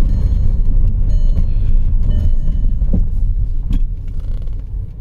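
Low, steady rumble of a 2008 Volkswagen Passat's 3.6 litre VR6 engine and tyres, heard from inside the cabin as the car drives slowly. A couple of light clicks come about three seconds in, and the rumble eases near the end.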